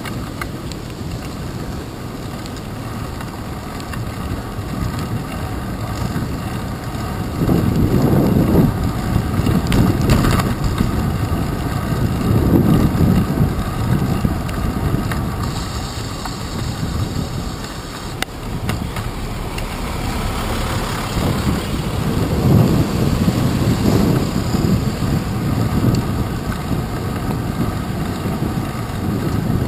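Low rumbling wind noise on a handlebar-mounted action camera's microphone as a bicycle rides through city traffic, mixed with the sound of surrounding vehicles on wet streets. It swells louder several times.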